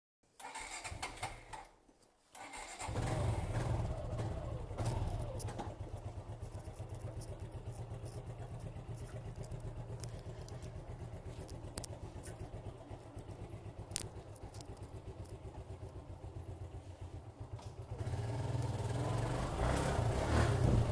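Suzuki Gixxer 155 single-cylinder motorcycle engine idling with an even, rapid pulse, getting louder about 18 seconds in.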